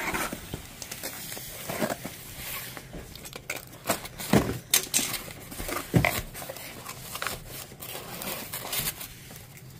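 Cardboard box being opened: a box cutter slitting the packing tape, then the flaps pulled open and the box handled, with irregular scrapes, rustles and clicks and a few louder knocks about four and a half and six seconds in.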